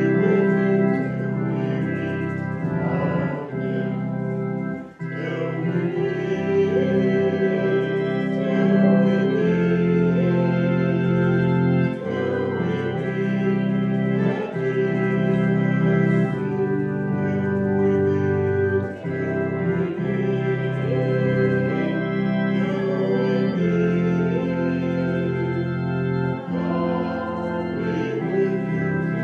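Church organ playing a postlude of held chords that change every second or two.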